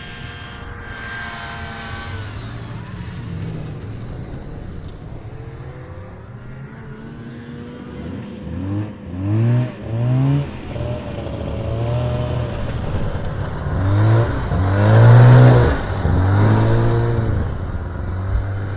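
Snowmobile engines running, with two short revs about nine and ten seconds in. One machine is loudest around fifteen seconds in as it revs close by.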